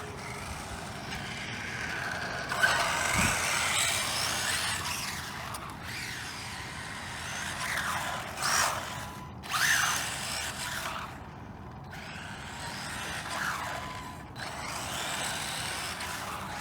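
Brushless electric motor of a Team Associated RB10 RC buggy whining up and down in pitch through repeated throttle bursts, with short pauses between them. A single sharp knock about three seconds in.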